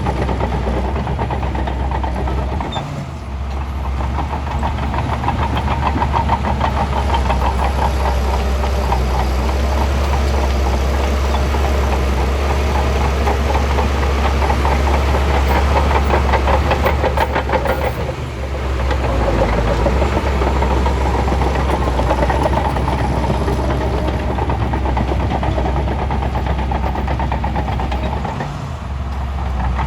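Shantui bulldozer's diesel engine running hard with a dense, rapid clatter. The engine sound dips briefly about three seconds in, again around the middle, and near the end.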